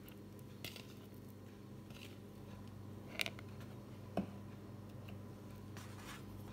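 Faint handling of a sticky 100%-hydration pizza dough on a steel work surface during reinforcing folds: soft taps and squishes, with two short sharp clicks about three and four seconds in. A low steady hum runs underneath.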